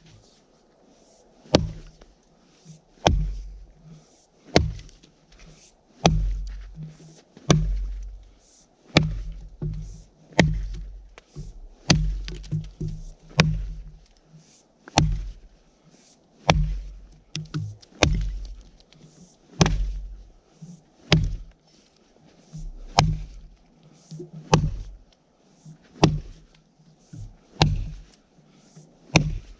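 Fire axe with a Welland Vale True Temper head on a 32-inch handle chopping into a frozen spruce log. A steady series of sharp blows, about one every second and a half.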